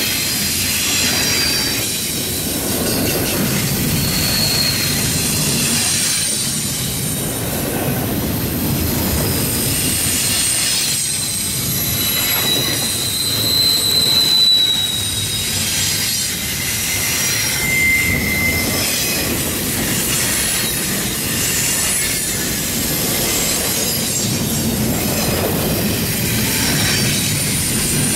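CSX intermodal train's double-stack container well cars rolling past: a steady rumble of wheels on rail, with scattered short, high wheel squeals, the loudest about halfway through.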